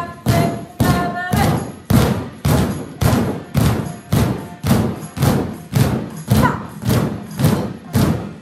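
Drumsticks beating on exercise balls in steady time, about two thuds a second.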